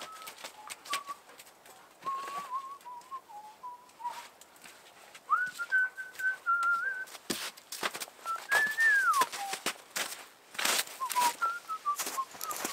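A man whistling a tune, a single wandering note line with a rising and falling glide about nine seconds in, over knocks and rustles of gear being handled and carried, which get louder in the second half.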